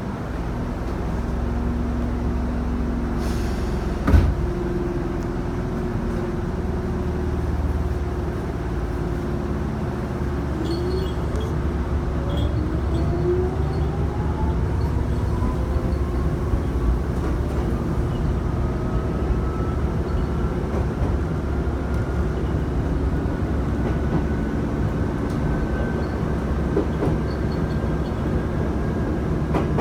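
Chichibu Railway electric train running, with a steady low rumble under a motor whine that climbs steadily in pitch from about ten seconds in as the train gathers speed. A single knock about four seconds in.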